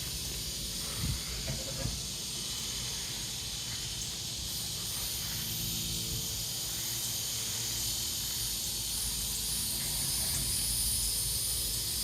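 Two distant fireworks bangs about a second apart near the start, over a steady high-pitched hiss of insects.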